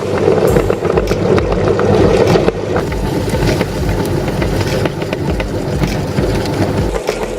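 Electric meat grinder running under load, its motor humming steadily with many sharp cracks and crunches as it grinds oysters.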